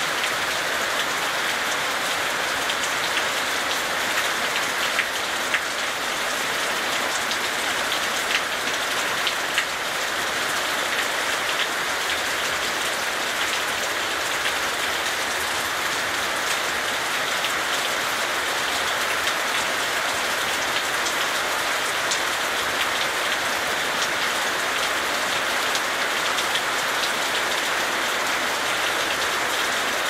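Steady rain falling, a continuous hiss dotted with many close individual drop hits.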